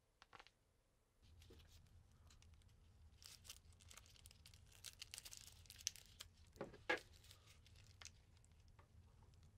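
Crinkling and tearing of a spore syringe's plastic packaging as gloved hands open and handle it, with a few sharper snaps in the middle, over a low steady hum.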